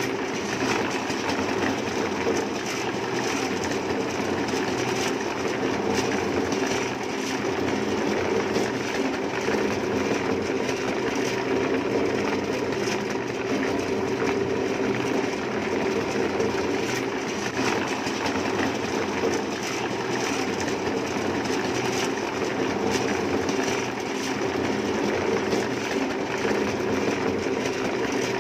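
A machine running steadily with an even, fast rattle, at a constant level throughout.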